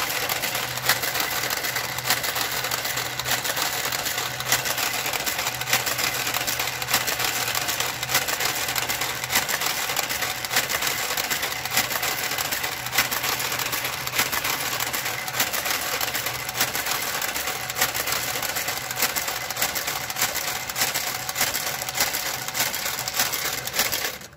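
Brother electronic knitting machine carriage running along the needle bed, a dense steady clatter of needles with many sharp clicks over a low hum. It cuts off suddenly near the end.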